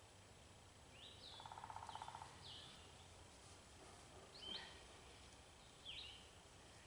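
Faint songbirds calling: short slurred high notes repeated every second or two, with a rapid low trill lasting about a second starting about a second in.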